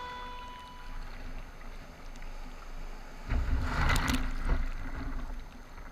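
Sea kayak on open water: splashes of water from about halfway in, with wind rumbling on the camera's microphone.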